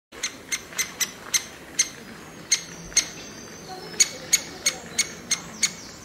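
Woodpecker chick cheeping from the nest hole: short, sharp, high calls, repeated about three times a second with a couple of brief pauses.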